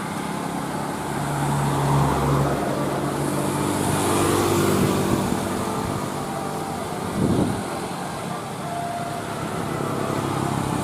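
Road traffic: motor vehicle engine and road noise, with a short louder burst about seven seconds in.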